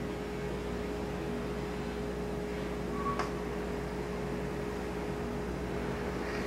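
Steady background hum and hiss with a held mid-pitched tone, and one faint click about three seconds in.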